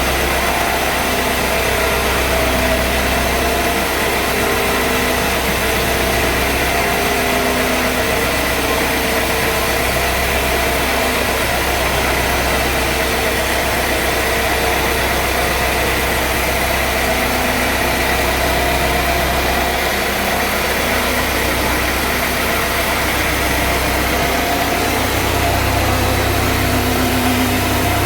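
Sawmill engine running steadily at an even speed, with a low hum and no change in pitch or level.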